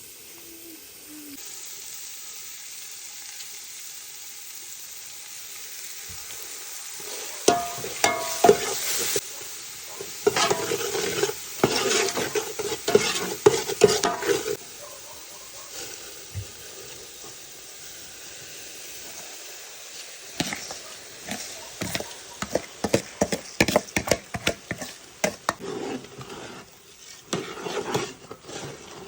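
Food sizzling in hot oil in a cooking pot, with a spoon stirring and scraping against the pot in two spells, one from about a quarter of the way in and another in the last third.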